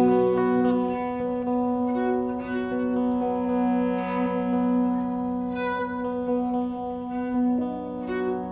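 Instrumental passage of contemporary chamber music with no voice: long held notes from bowed cello and clarinet over a sustained low note, the upper notes changing about a second in and again near the end.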